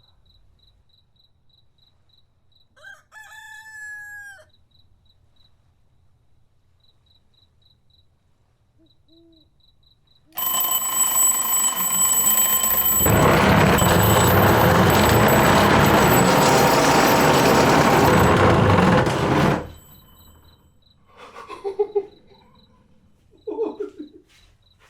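Homemade alarm clock going off: after a brief rising-and-falling call, a loud alarm of several steady high tones starts suddenly, joined a few seconds later by a heavy rushing noise, and the whole cuts off abruptly after about nine seconds.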